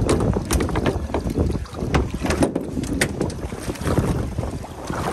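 Wind buffeting the microphone aboard a small boat at sea, a dense low rumble broken by several sharp knocks and clicks.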